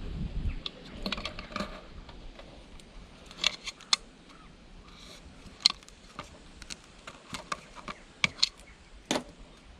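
Scattered sharp clicks and light taps, irregularly spaced, from tools and plastic heater casing parts being handled during a teardown.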